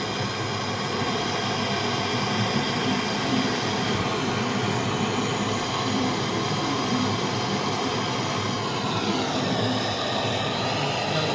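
Steady machine noise with a whine running through it; several of the whining tones drop in pitch about nine seconds in.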